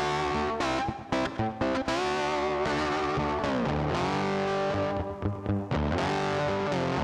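Background music: distorted electric guitar playing sustained, bending notes.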